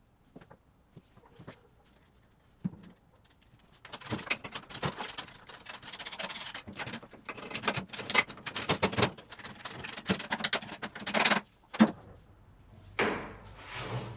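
Irregular hand rubbing and scraping strokes with scattered clicks, starting about four seconds in. A sharp knock comes near the middle of the sound, then a short pause before the scraping resumes.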